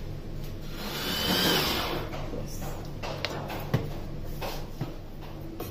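Pull-string manual food chopper whirring as its blades chop onion, loudest about a second in, followed by a few light knocks.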